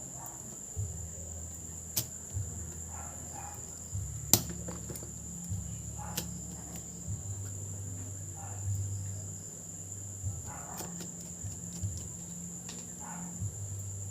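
Scattered small clicks and taps from handling a laptop and its parts, the loudest about four seconds in, over a steady high-pitched whine and a low hum.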